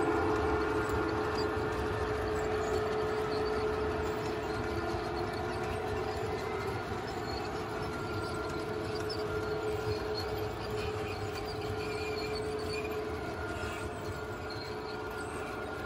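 Model freight train running past on the layout track: wheels rolling over the rails with a steady motor hum, slowly fading as the long rake of hopper wagons moves away.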